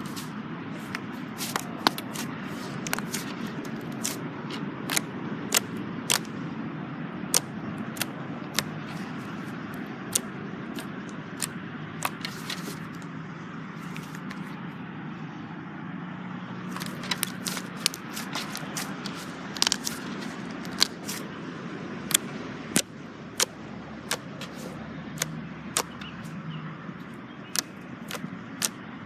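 Slime being squeezed and worked by hand, with a steady squishing haze and frequent sharp, irregular pops and clicks.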